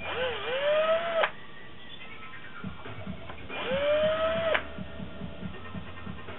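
Cordless drill-driver run in two short bursts, backing out screws from a Wetbike's Mikuni carburetor. Each burst is a whine that climbs in pitch and cuts off suddenly.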